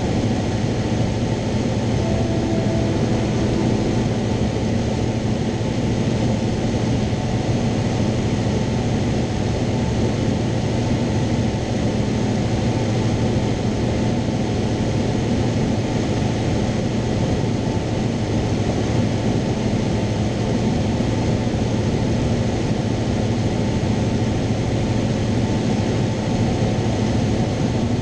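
Cessna 172's piston engine and propeller running steadily in flight, heard from inside the cabin as a constant drone over a hiss of airflow.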